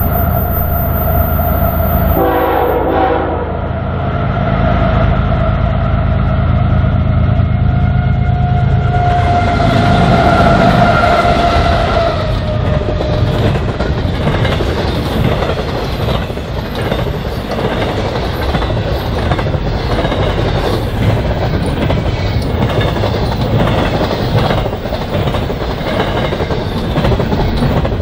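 BNSF diesel-electric freight locomotives passing with a long air-horn chord over the engines' drone, the horn fading out about twelve seconds in. Then the intermodal cars roll by with steady wheel noise and rapid clicking over the rail joints.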